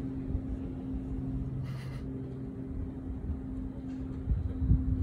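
A steady low mechanical hum over a rough low rumble, with a brief rustle about two seconds in; the low rumble grows stronger near the end.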